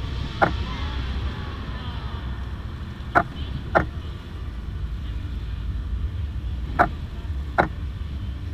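Camera shutter clicking: one click just after the start, then two pairs of clicks, each pair under a second apart as the shutter opens and closes for one exposure. Under it runs a steady low rumble of the fireworks display.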